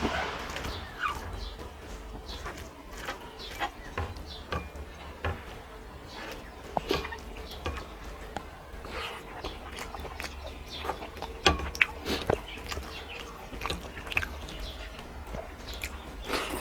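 Close-up eating sounds: a person chewing a mouthful of rice and curry, with irregular wet mouth clicks and smacks over a low steady hum.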